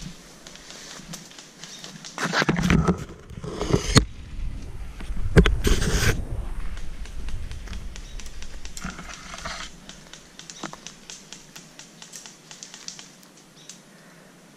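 Someone moving on foot through forest undergrowth: leaves and branches brushing past a body-worn camera, with twigs and brush crackling underfoot. The rustling is heaviest in the first half, with a few loud knocks and rumbles on the microphone, then gives way to lighter, rapid crackles near the end.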